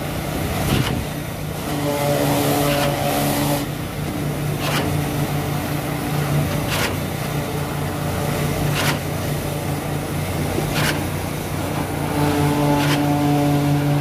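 Long-boom concrete pump pumping concrete up through its boom hose: a steady engine drone with a sharp knock about every two seconds as the pump changes stroke.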